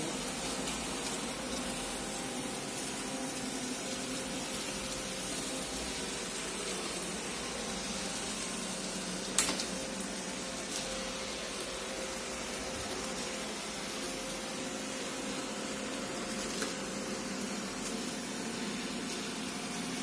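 An iRobot Roomba e5 and an Aldi robot vacuum running on a tile floor, picking up paper confetti: a steady hum with a faint steady tone, and one sharp click about nine seconds in.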